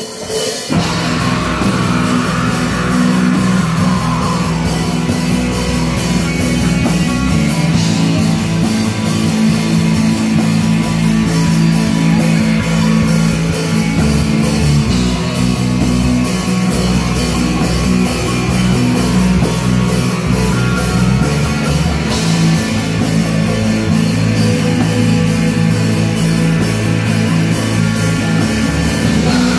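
Heavy metal band playing live: electric guitars, bass guitar and drum kit, kicking in about half a second in and then running loud and dense.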